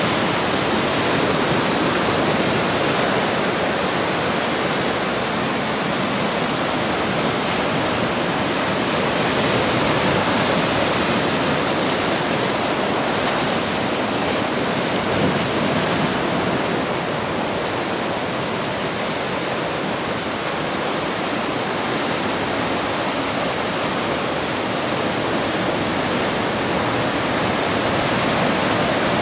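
Ocean surf breaking and washing over rocks, a steady loud rush of churning water that swells and eases slowly.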